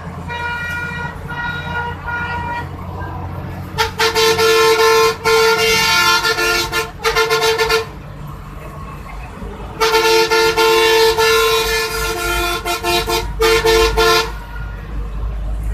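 A vehicle horn honking in several long held blasts, faint at first and then loud in two runs, over the low rumble of the vehicle being ridden in on the road.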